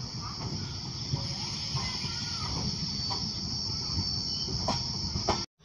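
Express train's LHB coach running at speed, heard from the open doorway: a steady low rumble of wheels on rails with a few sharp clicks, under a loud, steady high-pitched chirring of insects. The sound cuts off abruptly near the end.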